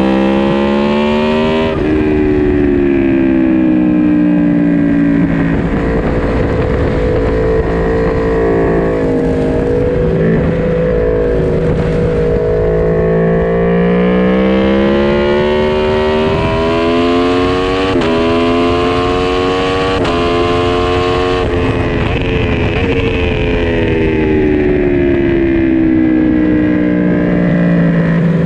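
Four-cylinder naked sportbike engine on a racetrack, heard onboard. The revs fall away over the opening seconds and again near the end as the bike slows. In between they climb hard, with several quick upshifts that each drop the pitch suddenly, about two-thirds of the way in.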